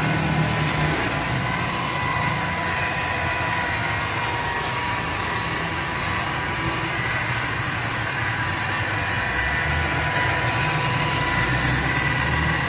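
Handheld electric rotary polisher running steadily with a high, even whine as its buffing pad works over a scooter's plastic body panel.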